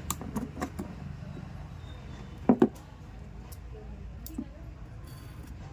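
Clicks and knocks of metal parts and tools being handled as a battery sprayer pump motor is opened up, with two sharp knocks in quick succession about halfway through, over a steady low hum.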